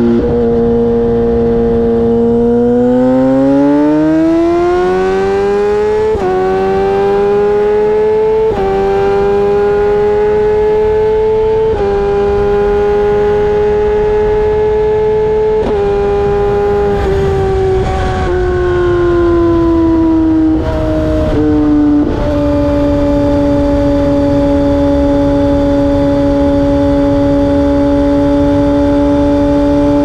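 2010 Suzuki GSX-R1000's inline-four running through dual Akrapovic mufflers under way, heard right behind the tailpipes. The note climbs for a few seconds, holds fairly level with a few short breaks, falls off about halfway through, then settles into a steady, lower cruise.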